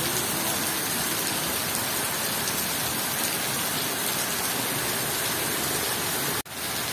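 Heavy rain falling steadily, an even hiss with no letup, that breaks off for an instant near the end.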